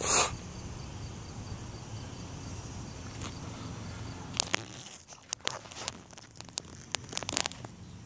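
A loud knock at the start, then a low steady rumble, then a run of sharp clicks and crackles in the second half as the phone is brought down close to the ground: handling noise on the phone's microphone.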